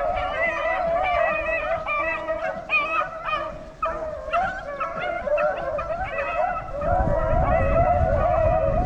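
A pack of beagles baying together as they run a rabbit's trail, many voices overlapping. From about seven seconds in, a low wind rumble on the microphone rises under the dogs.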